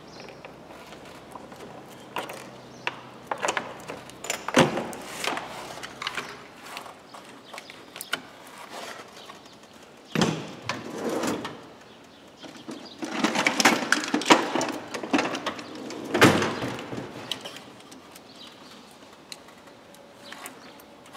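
Gloved hands working in a car's engine bay with the engine off: irregular clicks, knocks and plastic rattles as the filter housing, hoses and wiring are unclipped and handled, with a busier stretch of rattling about two thirds of the way through.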